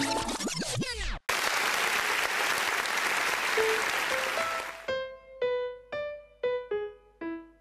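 Sustained music slides down in pitch as if slowing to a stop and cuts off about a second in; then applause for about three and a half seconds, with a few rising notes coming in under it; then a keyboard plays single notes, about two a second, each dying away.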